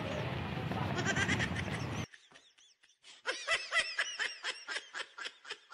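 Street noise with a few voices that cuts off about two seconds in. After a second of silence comes an edited-in comedy laugh sound effect: a quick run of pitched, bleating ha-ha calls, about four a second, fading toward the end.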